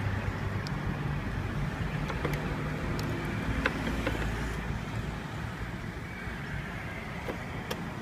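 Honda motor scooter's small engine idling steadily, with a few light clicks over it.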